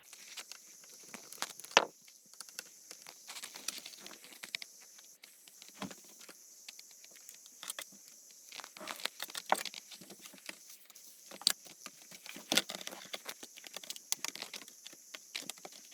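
Small Phillips screwdriver driving tiny screws into a laptop's screen frame: irregular light clicks, taps and scrapes of metal on metal and plastic, a few of them sharper, over a faint steady hiss.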